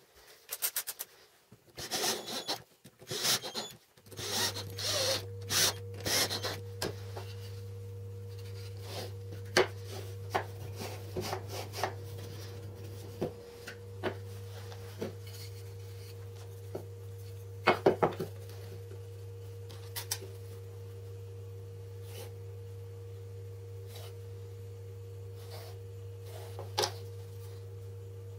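MDF pieces being handled, slid and set down on a wooden tabletop: rubbing, scraping and knocks, busiest in the first six seconds, then occasional sharp clicks. A steady low hum with a fainter higher tone comes in about four seconds in.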